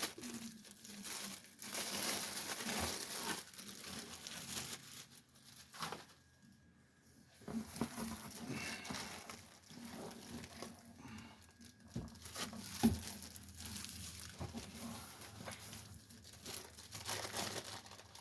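Packaging being handled: plastic wrap and bags crinkling and rustling in stretches, with a short pause about a third of the way in and a couple of light knocks about two-thirds through.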